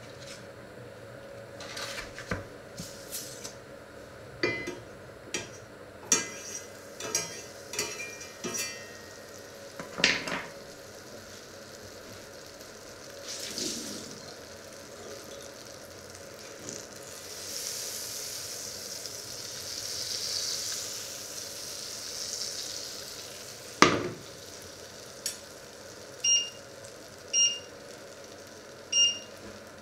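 Kitchen handling noises: a run of knocks and clinks of utensils and cookware, then butter sizzling softly as it melts in a black steel frying pan. After a loud knock come three short beeps, about a second apart, from the electric hob's touch controls as the heat is set.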